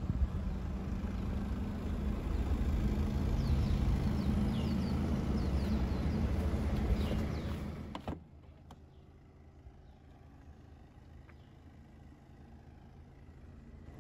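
Low, steady rumble of the 2014 Audi A6's 2.0 TFSI turbocharged four-cylinder engine idling. About eight seconds in it cuts off abruptly with a click, leaving a much quieter low hum and a few faint clicks.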